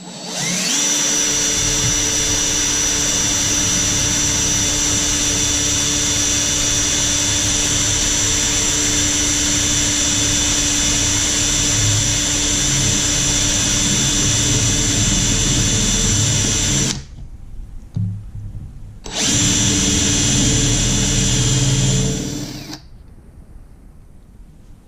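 Electric drill with a small bit running steadily as it drills a shallow divot into the aluminum plug on an outboard carburetor body. It spins up about half a second in and stops for a couple of seconds. Then it runs again for a few seconds and stops.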